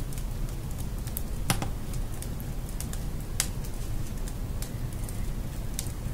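Wood fire in a fireplace crackling, with sharp cracks at irregular intervals, the loudest about a second and a half and three and a half seconds in, over a low steady rumble.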